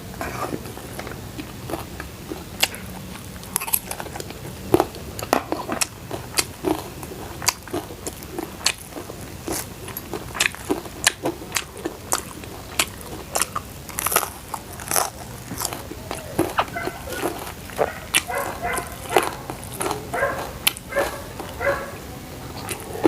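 Crunchy food being bitten and chewed close to the microphone: many sharp crunches at an irregular pace, several a second, with a few short pitched sounds in the second half.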